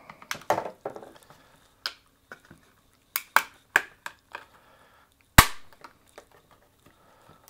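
Plastic snap-fit clips of a WD Elements 2.5-inch USB hard disk enclosure clicking loose as the case halves are pried and squeezed apart by hand: a string of sharp plastic clicks, the loudest a single hard snap about five seconds in.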